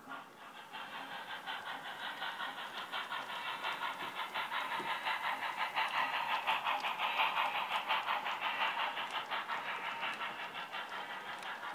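Sound decoder in a Bachmann On30 4-6-0 model steam locomotive, playing Tsunami-style steam exhaust through a small hi-bass speaker: a rapid, steady run of chuffs. The chuffing grows louder as the engine runs past, peaks a little past the middle, then fades slightly.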